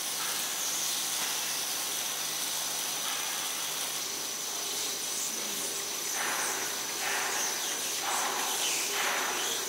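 Steady hiss of a foil and foam laminating line running, with sheets passing over its rollers and a thin steady high whine; the noise swells briefly a few times in the last few seconds.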